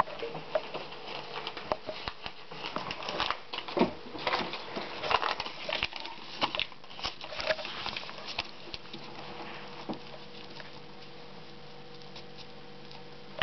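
A crumpled paper note being unfolded and handled, with irregular crinkling and rustling that thins out after about nine seconds. A faint steady hum lies underneath.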